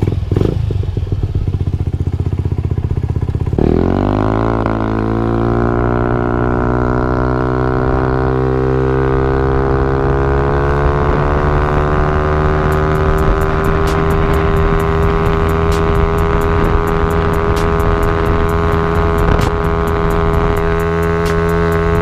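Honda Ruckus 50cc four-stroke scooter engine running through a Yoshimura carbon fiber exhaust. About three and a half seconds in it revs up with a quick rise in pitch as the scooter pulls away. It then holds a steady drone at cruising speed.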